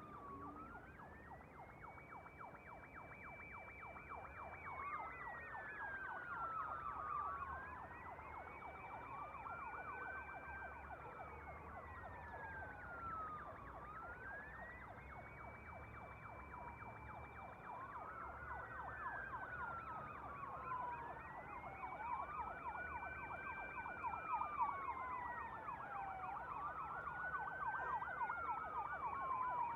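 Several emergency vehicle sirens heard from a distance, two of them wailing in slow rising and falling cycles, one higher-pitched than the other, over a faster warbling siren. They grow slowly louder, over a low rumble of traffic.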